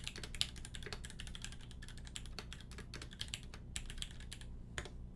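Fast typing on a custom mechanical keyboard with lubed C3 Tangerine linear switches on a 1.5mm brass plate in a polycarbonate Singa case, with GMK keycaps: a quick, uneven run of keystrokes that stops near the end.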